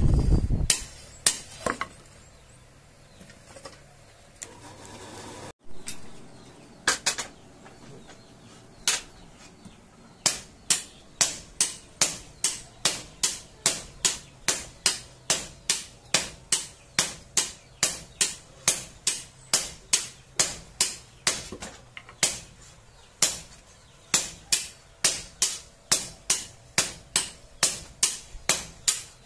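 Hammer blows on metal over an anvil, each strike ringing. After a few scattered strikes it settles, about ten seconds in, into a steady beat of about two blows a second.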